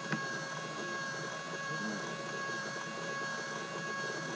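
Steady whine of a radio-controlled boat's electric motor, holding several fixed tones without rising or falling, over a rushing background; one short click just after the start.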